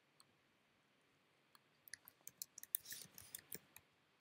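Typing on a computer keyboard: a faint, quick, irregular run of key clicks starting about one and a half seconds in, after a single faint click just after the start.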